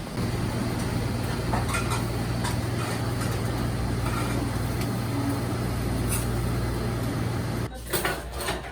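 A steady machine hum, low and constant, that stops abruptly near the end, followed by a few light clinks.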